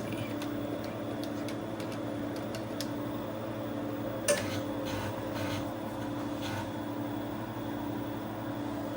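TRS-80 Model II computer running with a steady hum, with a few light clicks. One sharp click comes about four seconds in, followed by several softer ticks, as a program is loaded from its 8-inch disk.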